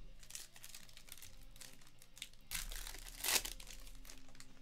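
Trading-card pack wrapper crinkling and tearing open in the hands, with a louder burst of crackling about three seconds in.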